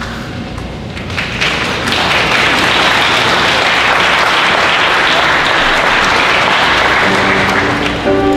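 Audience applauding: the clapping swells about a second in and then holds steady.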